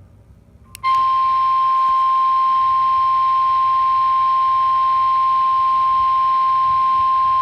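NOAA Weather Radio's 1050 Hz warning alarm tone. It is a single loud, steady tone that starts about a second in and holds without a break, the signal that a warning message follows.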